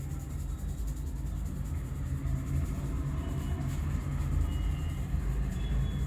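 A steady low rumble, with a few faint, short high tones over it.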